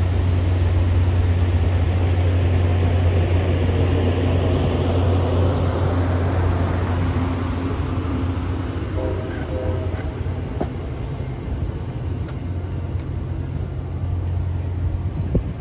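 Commuter train pulling away: passenger coaches rolling past with wheel-on-rail noise over a steady low drone, the sound gradually fading as the cab car at the rear passes and recedes.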